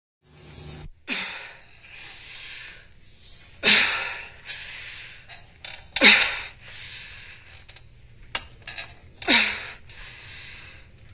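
A woman grunting and breathing hard with the strain of doing pull-ups: a sharp, effortful exhale that drops in pitch four times, about every two and a half seconds, with heavy breathing in between.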